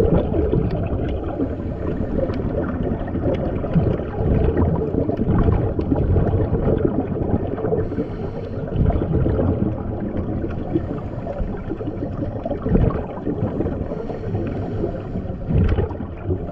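Muffled underwater noise picked up with the camera submerged: a deep, dull rumble that swells every few seconds.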